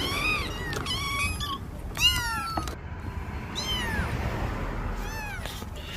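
An animal calling over and over in short, high cries that rise and fall, about half a dozen of them, with a low steady hum underneath.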